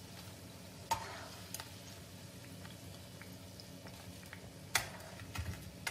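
Bread slices frying in hot oil in a nonstick pan, a faint steady sizzle, with a few sharp clicks about a second in and near the end from metal tongs knocking against the pan.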